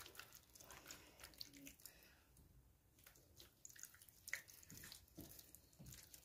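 Faint wet squishing and small clicks of hands rubbing marinade sauce over and under the skin of a raw whole chicken, with one slightly louder squelch about four seconds in.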